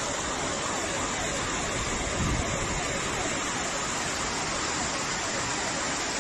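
Heavy hail and rain coming down hard, a loud, dense, steady hiss, with a dull thump about two seconds in.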